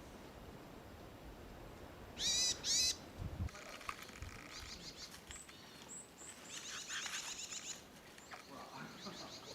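Wild birds calling: two loud, short calls a little over two seconds in, then several birds chirping and trilling over one another.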